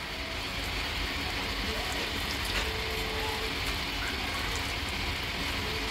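Hands squelching raw chicken pieces through a thick, wet green chilli and coriander paste in a plastic bowl: an even wet mixing noise.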